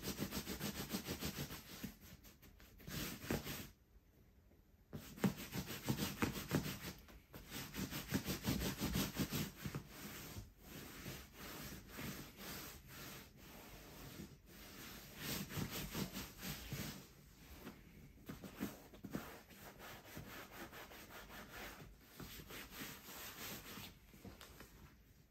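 Hands rubbing and smoothing the sheepskin leather of a Schott Type B3 flight jacket in rapid repeated strokes, with a short pause about four seconds in.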